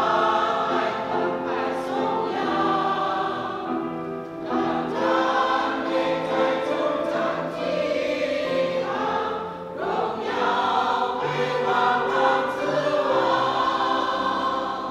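Mixed church choir of women's and men's voices singing a hymn in harmony, with long held chords; the singing fades out right at the end.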